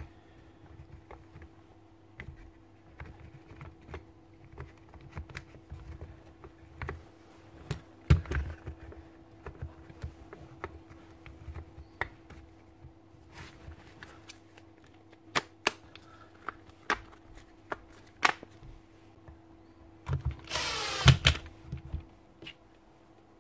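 Scattered clicks and knocks of plastic casing parts being handled and pressed together. Near the end a cordless drill-driver runs for about a second and a half, driving a screw into the casing. This is the loudest sound.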